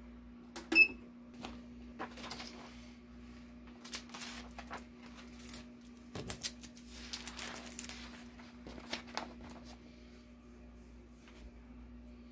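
A short electronic beep from the heat press's control panel as a button is pressed, then crinkling and rustling of the clear plastic carrier sheet of glitter heat transfer vinyl being laid and smoothed onto a T-shirt, over a steady low hum.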